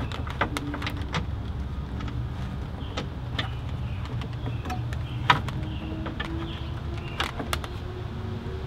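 Scattered plastic clicks and knocks as a BMW E39 auxiliary electric fan is handled and fitted into the front of the car, the sharpest one about five seconds in, over a steady low background rumble.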